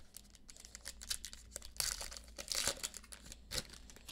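A Panini Classics football card pack being torn open, its wrapper crinkling and crackling in a run of irregular bursts, loudest about two seconds in.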